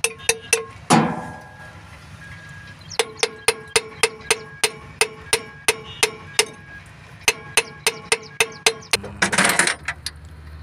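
Rapid metal-on-metal tapping, about four strikes a second, each with a short ringing note, in runs with pauses between: a tool knocking on the thermostat housing of a Volvo D13F diesel engine. There is one heavier knock about a second in and a short scraping rush near the end.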